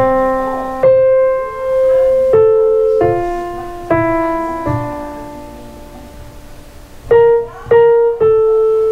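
Electronic keyboard played in a piano voice: a slow line of struck notes and chords, each ringing and fading, with one long fading note in the middle and three quicker notes near the end.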